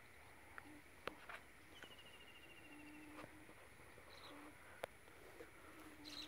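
Quiet rural background with a few sharp clicks as a knife works at dry vine stems; the two loudest come about a second in and near five seconds. A bird gives a quick descending trill of rapid high notes about two seconds in.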